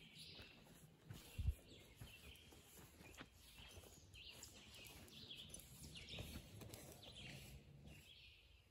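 Faint woodland birdsong, a scatter of high chirps over near silence, with one low thump about a second and a half in.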